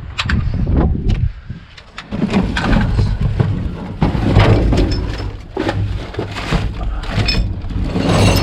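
Wind buffeting the microphone in uneven gusts, easing off briefly about a second in, with scattered knocks and rattles over it.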